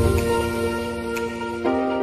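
Soft instrumental background music with held notes; the chord changes about one and a half seconds in.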